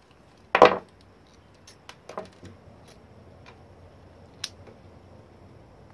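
A short, loud noise about half a second in, then scattered faint metallic clicks and ticks as a screwdriver and fingers work on the small motor of a hair dryer and its brush-holder parts.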